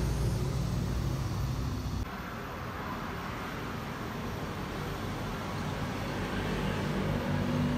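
A steady low motor hum that cuts off about two seconds in. After it comes a quieter, even background rush like distant road traffic.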